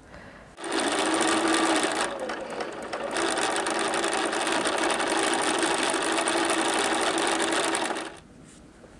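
Bernina electric sewing machine stitching a seam: it starts under a second in, runs at a steady speed and stops about eight seconds in.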